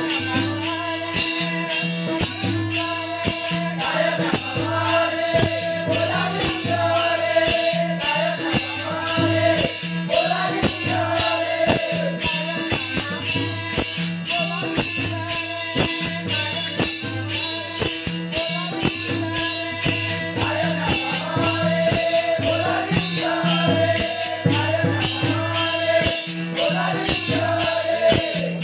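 Warkari bhajan: voices singing a devotional melody over a steady drone, with small hand cymbals (taal) clashing in a fast even rhythm and a drum beating a repeating low pattern.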